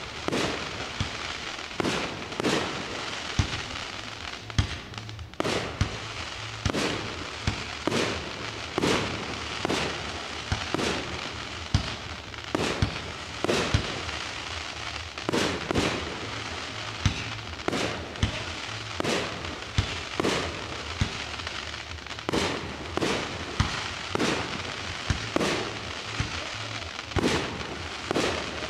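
Aerial firework shells bursting in a large display, a rapid run of sharp bangs about one or two a second over a steady background hiss.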